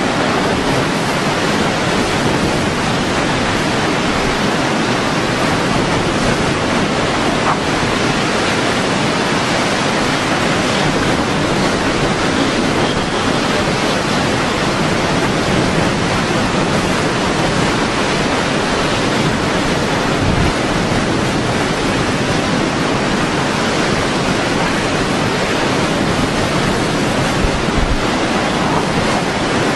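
Hurricane wind and driving rain: a loud, steady rush of noise with no let-up, the wind buffeting the microphone.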